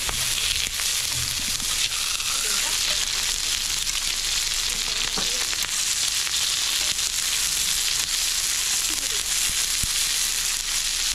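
Meat sizzling as it fries: a steady frying hiss with a few small crackles.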